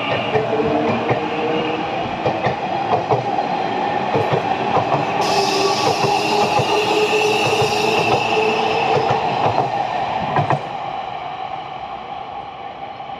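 Nankai 9000 series electric train running past along the platform: motor whine, wheels clicking over rail joints and a rushing of running noise. About ten and a half seconds in the sound drops off, then fades as the train moves away.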